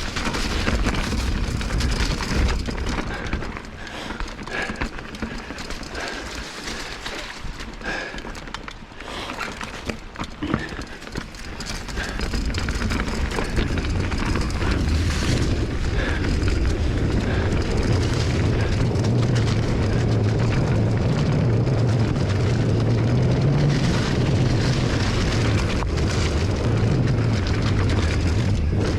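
Wind buffeting the microphone and tyres rumbling over a dirt trail during a bike ride, with scattered rattling clicks at first; about twelve seconds in the rush turns louder and steadier.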